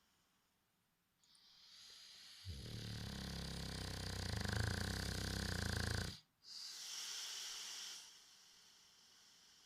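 Boxer dog snoring: a breath hisses in, then a loud, low rattling snore lasts about three and a half seconds and stops abruptly, followed by a breathy hiss of breath that fades out.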